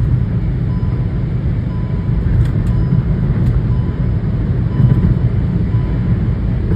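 Steady loud in-cabin noise of a Hyundai Grand i10 Nios running flat out in fourth gear at around 170 km/h: engine drone blended with road and wind noise into a low rumble.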